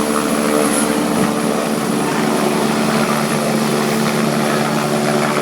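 Helicopter running steadily at close range: its turbine and rotor drone as a stack of steady tones, with a thin high whine above them.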